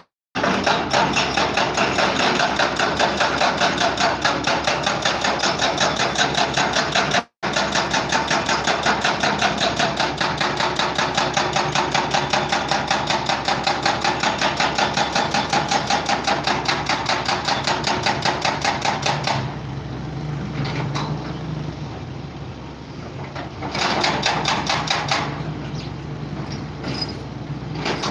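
A machine pounding loudly in a rapid, even rhythm of about five or six strokes a second, which stops about two-thirds of the way through; a shorter loud stretch follows near the end.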